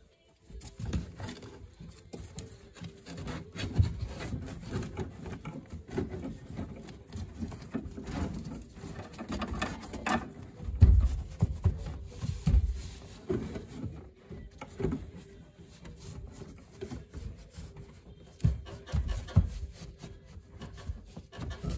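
Gloved hands pressing, patting and rubbing a glued carpet panel down onto a car's rear wheel well: irregular soft thumps and rustling of carpet, with a few louder thumps about halfway through.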